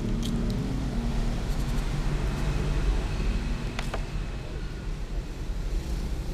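A cat chewing fish bones close to the microphone, with a few sharp crunches, over a steady low rumble.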